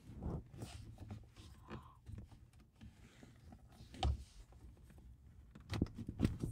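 A Nissan 370Z's leather shift boot and plastic trim ring being pressed back into the centre console by hand: rustling with small clicks and knocks. There is a sharper knock about four seconds in and two more near the end as the ring is seated.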